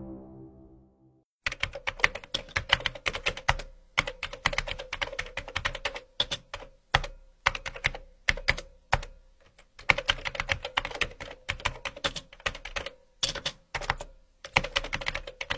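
Computer keyboard typing as a sound effect: rapid clicks in bursts separated by short pauses. Background music fades out during the first second.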